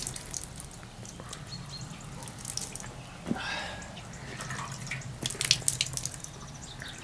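Water splashing and dripping as hands scoop water from a metal bucket and throw it onto a face, with a cluster of louder splashes about two thirds of the way through.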